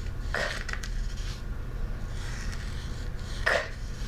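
Light rubbing and scraping of hands moving lesson materials across a work mat, in a few short strokes.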